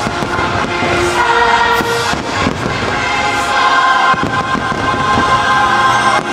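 Many fireworks shells bursting in quick succession over a Christmas fireworks-show soundtrack of music with a choir singing.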